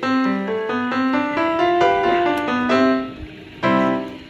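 Background piano music: a moving melody of single notes over held chords.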